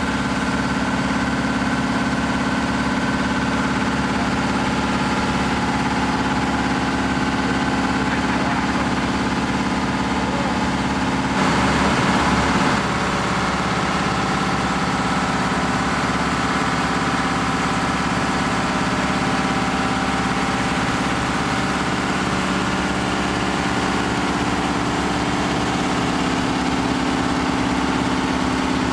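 Hahn fire engine's engine running steadily while it drives the fire pump, drafting water and throwing a stream of water. A brief louder stretch comes about twelve seconds in.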